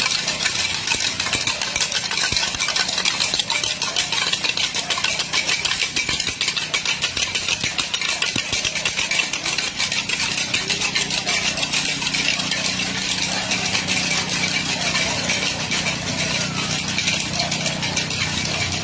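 An engine running steadily at idle, a low hum under a dense, high-pitched hiss of rapid ticking.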